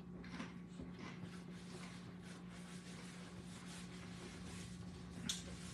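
Faint, irregular crunching as a man chews a tortilla-chip nacho, with a paper napkin rustling, over a steady low hum.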